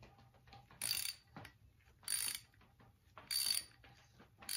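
A 1/4-inch NPT pipe tap being turned by hand into an oil galley hole in a cast-iron small-block Chevy 350 block with a ratcheting handle, cutting threads. Four short bursts of ratchet clicking come a little over a second apart as the handle swings back between turns.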